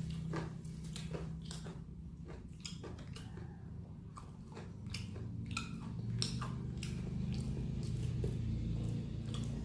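Close-up chewing and biting of fried chicken and rice: irregular wet chews and crisp clicks of the crust. A steady low hum sits underneath.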